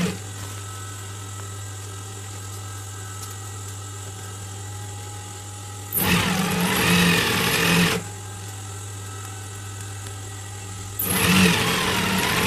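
Industrial lockstitch sewing machine stitching through layered cap fabric in two short runs, one about six seconds in and another near the end. Its motor hums steadily in between.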